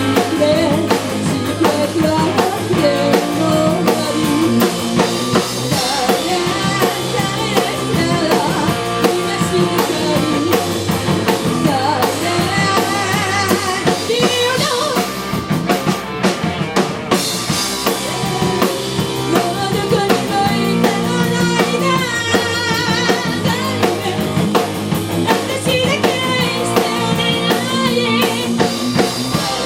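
A rock band playing: drum kit with kick drum keeping a steady beat, guitar, and a singing voice.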